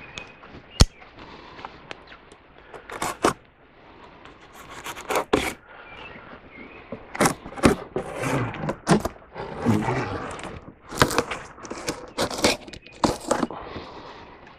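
Handling noise: irregular scraping with scattered sharp clicks and knocks, the sharpest under a second in.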